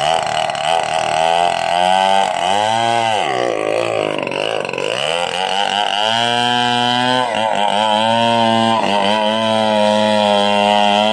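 Stihl 070 two-stroke chainsaw engine running, revved up and down a few times, then held at a steady speed from about six seconds in.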